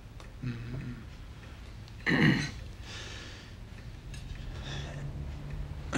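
A single short, sharp snort, a loud nasal breath, about two seconds in, over quiet room tone.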